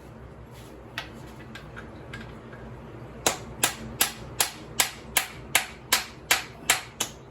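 Small sledgehammer striking a stuck swing arm pivot bolt on a 1994 Kawasaki KX125 dirt bike to drive it out, after a dead-blow mallet failed to move it. A few light taps, then from about three seconds in a steady run of sharp blows, a little under three a second.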